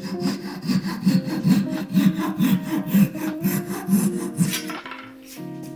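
Flush-cut handsaw trimming protruding wooden dowels level with a maple panel. It makes quick back-and-forth sawing strokes, about three a second, which stop shortly before the end.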